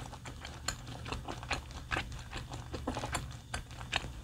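A person chewing a piece of grilled beef close to the microphone: irregular soft wet clicks and smacks of the mouth, a few a second.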